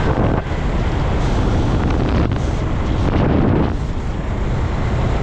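Suzuki GZ250's single-cylinder engine running under way on its newly fitted aftermarket carburettor, with heavy wind noise buffeting the microphone.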